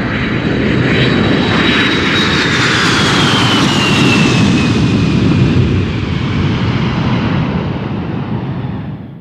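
Aircraft engine passing by: a steady loud rumble with a high whine that slowly falls in pitch through the middle, tapering off near the end.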